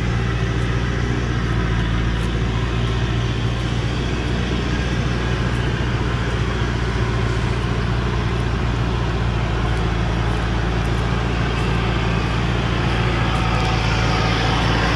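Diesel engine of a Thaco Forland truck loaded with acacia logs running steadily under load as the truck climbs a dirt track in low gear, a constant deep engine drone.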